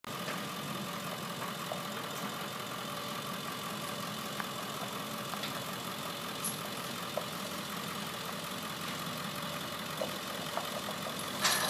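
Diesel engine idling steadily, with a brief louder burst of noise near the end.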